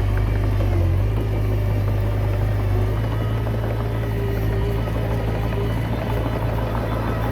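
Komatsu D20P bulldozer's diesel engine running steadily with a low drone.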